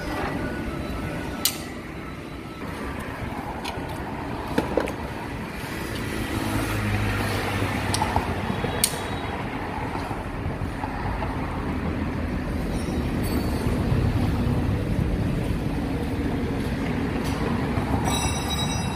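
Steady vehicle and traffic rumble, with a few short sharp clicks scattered through it.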